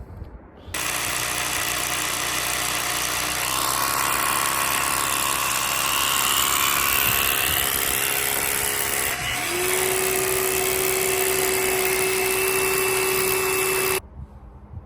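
Gas snow blower engine running steadily under load, with a whine over the engine note. The pitch dips briefly about nine seconds in, then settles into a steady higher whine before the sound cuts off suddenly.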